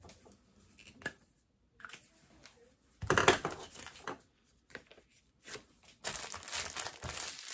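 Plastic packaging crinkling and rustling as it is handled: scattered light rustles, a loud burst of crinkling about three seconds in, then steady crinkling for the last second and a half.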